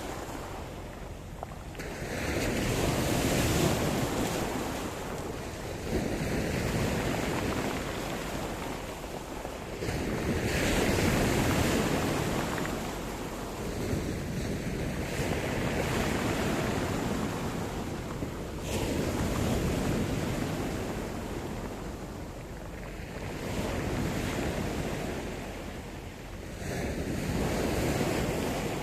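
Sea surf: waves rolling in and breaking, the wash swelling and falling back about every four seconds.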